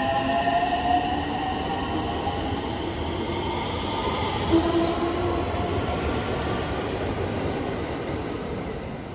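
Train running past close by: loud rail rumble with several whining tones that drift slowly in pitch, a short knock about four and a half seconds in, and a fade over the last second.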